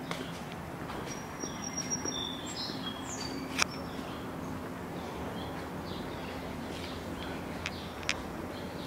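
Outdoor ambience: small birds chirping in short high notes, mostly in the first few seconds, over a steady low hum. Two sharp clicks break in, the louder a little after three seconds and another near the end.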